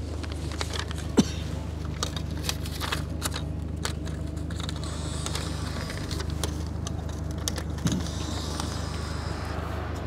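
Someone working a vending machine: scattered small clicks and light metallic jingling, with a sharper click about a second in, over a steady low hum.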